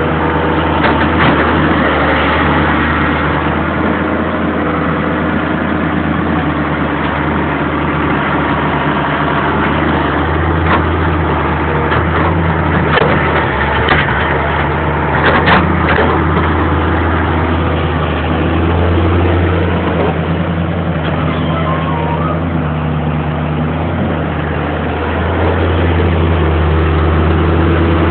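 Daewoo Solar 130 wheeled excavator's diesel engine running steadily, with a few sharp knocks in the middle as the bucket digs into riverbed gravel and stones.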